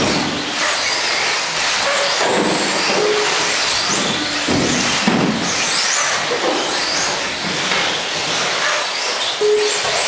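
Several radio-controlled off-road buggies racing together, their motors whining up and down in pitch as they accelerate and brake round the track.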